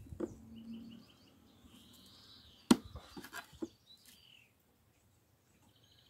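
A metal tool prying at the top of an old wooden birdhouse: one sharp knock about two and a half seconds in, then a few lighter taps. Small birds chirp in the background.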